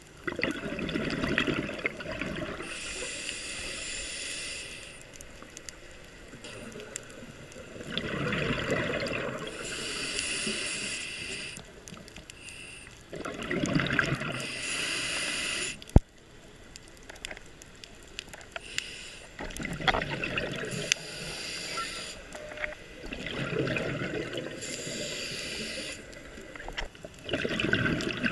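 A scuba diver's regulator breathing underwater: slow breaths about every five seconds, each a hissing inhale followed by a louder bubbling gurgle of exhaled air. One sharp click about halfway through.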